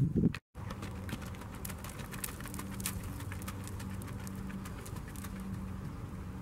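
A Missouri Fox Trotter's hooves thudding in arena dirt, cut off abruptly after a fraction of a second. Then a steady low hum with faint, irregular clip-clop of the same horse's hooves at a distance.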